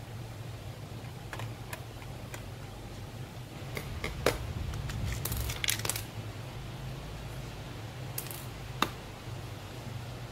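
Plastic clicks and snaps as the case of a cheap toy RC helicopter's remote control is pried apart and handled, over a steady low hum. The sharpest click comes about four seconds in, a quick cluster follows near six seconds, and another sharp click comes near nine seconds.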